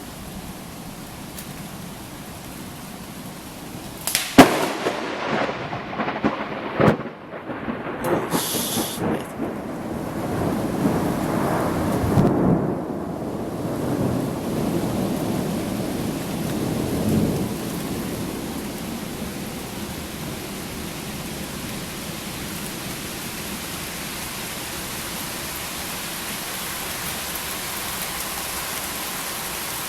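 Steady rain, then about four seconds in a very close lightning strike: a sharp thunder crack, the loudest sound, with a second crack a few seconds later. Thunder then rumbles for about ten seconds and fades back to steady rain.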